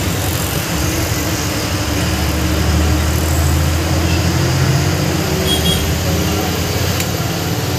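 Ashok Leyland BS6 city bus's diesel engine running under load with road and cabin noise as the bus drives through traffic, heard from beside the driver; the low engine hum grows stronger about two seconds in and eases near the end.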